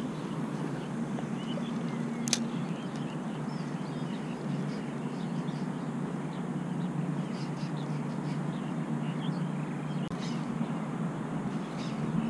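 Steady low outdoor rumble with faint bird calls above it, and a single sharp click about two seconds in.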